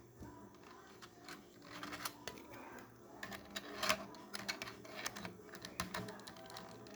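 Typing on a membrane keyboard: a steady patter of irregular soft key clicks, busier after the first second or so.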